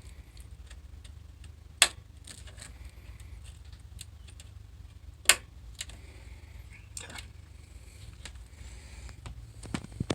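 Scattered clicks and knocks of hands working inside a desktop computer case, with two sharp louder clicks, about 2 and 5 seconds in, and lighter ticks between, over a low steady hum.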